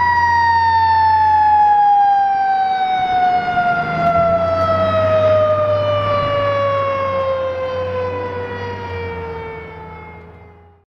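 Federal Signal Q2B mechanical siren on a departing fire engine winding down in one long, steadily falling pitch, with the truck's engine rumbling underneath. It fades away over the last few seconds.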